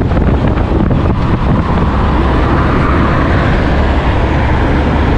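Motorcycle on the move at road speed: a steady engine and road drone mixed with wind rushing over the microphone. A van is passing close alongside.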